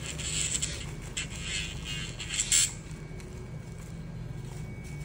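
Nail file rasping against a dog's claws in a series of short scraping strokes, loudest about two and a half seconds in, then quieter.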